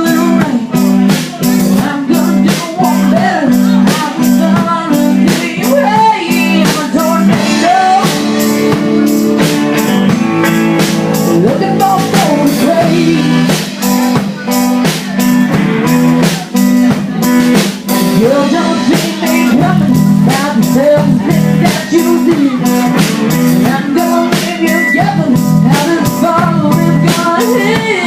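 Live band playing a blues-rock song: singing over guitar and drum kit.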